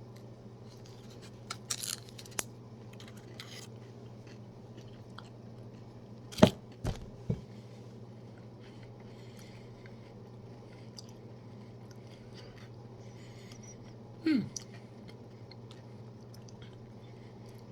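Chewing and crunching a peanut butter cup with crunchy cereal puffs inside, mostly faint, with one sharp click about six and a half seconds in and two smaller ones just after. A short falling hum of the voice comes near the end, over a steady low hum.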